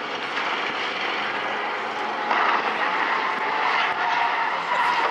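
Race car engines running on the track, with a steady whine joining and the noise getting louder about two seconds in.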